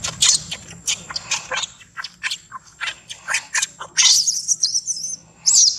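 Baby macaque screaming: a rapid run of short shrill squeals, then a long high wavering scream about four seconds in and one more short scream near the end.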